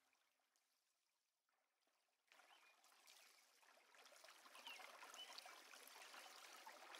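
Very faint trickling stream water fading in about two seconds in and growing a little louder after four seconds, after a short stretch of near silence.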